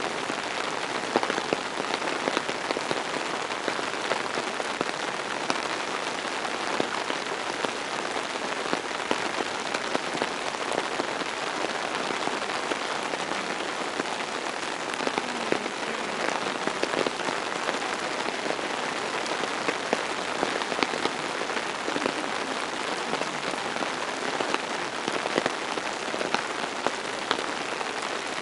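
Steady rain falling: a dense patter of drops with scattered louder individual drop hits.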